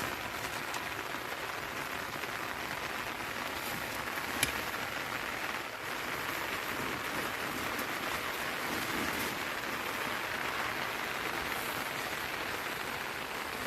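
Steady rain falling, an even hiss of drops, with one sharp tick about four and a half seconds in.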